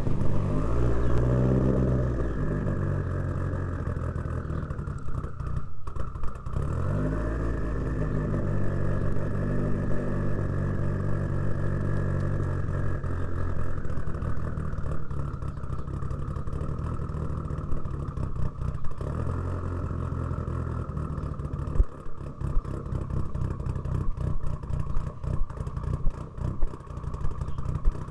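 Mitsubishi Lancer Evolution VIII's turbocharged 4G63 inline-four heard from the exhaust: it starts with a flare of revs that falls back toward idle. About seven seconds in it flares and settles again, then idles, with sharp uneven spikes near the end.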